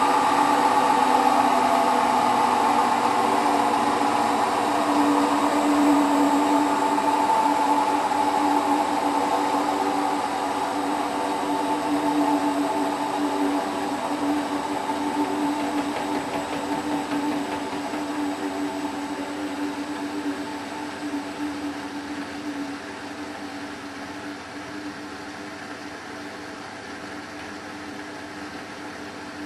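Hotpoint WT960 washing machine in its final 1600 rpm fast spin: a steady hum and whine of the motor and spinning drum that gradually gets quieter, the spin winding down.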